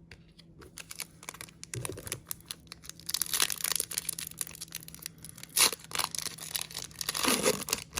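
Crinkling and tearing of a trading-card pack wrapper, with cards clicking and sliding as they are handled and sorted. It is a dense run of crackles and small clicks, with one sharper click a little past halfway.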